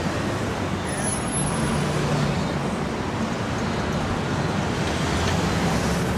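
Road traffic noise: a steady rumble of vehicles with a low engine hum underneath.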